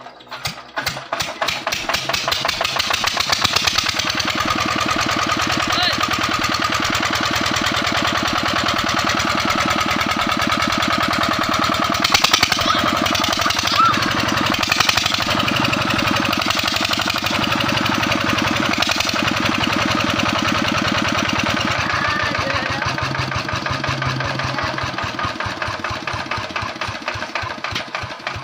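Single-cylinder diesel generator engine with its silencer removed, catching and picking up speed over the first couple of seconds, then running with a fast, loud open-exhaust beat. Past the two-thirds mark it slows, the beats spreading out and fading as it winds down.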